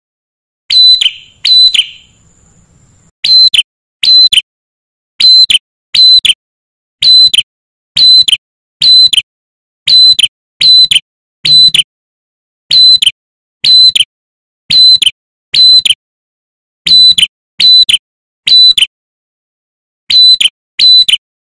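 Male ashy tailorbird calling: a long series of loud, sharp, identical notes, about one a second and often in pairs, with a short break about two seconds in. A territorial call used as a lure to provoke other tailorbirds into answering.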